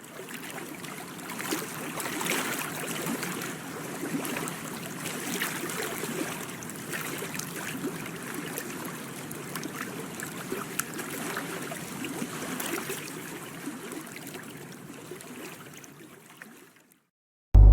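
Water lapping and trickling, with many small splashes and ticks. It fades in at the start and fades out just before the end.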